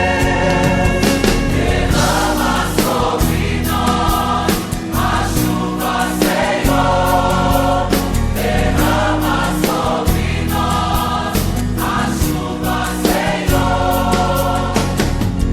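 Brazilian gospel backing track, transposed two tones down, with a backing choir singing phrases over drums and bass.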